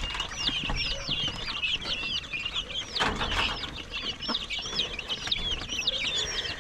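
A brood of baby chicks peeping constantly, many short, high calls overlapping several times a second. The chicks are weak and chilled and are about to be put under heat. A brief rustle comes about three seconds in.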